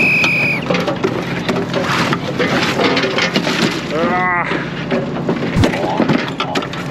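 Deck work on a crab fishing boat: hair crabs and crab pots being handled, with irregular knocks and clatter over a steady noisy background, and a brief squeal about four seconds in.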